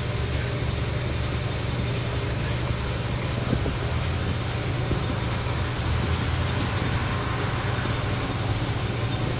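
Engine idling steadily, a constant low hum.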